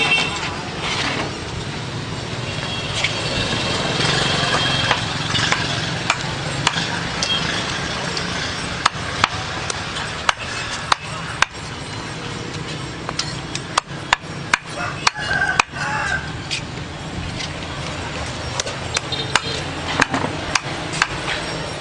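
Sharp knocks of a blade chopping the feet and heads off rats on a hard surface: a quick run of strokes in the middle and a few more near the end, over a steady background noise.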